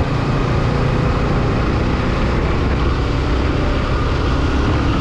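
Motorcycle riding at about 40 to 50 km/h, heard from the rider's position: a steady engine drone with wind and road noise.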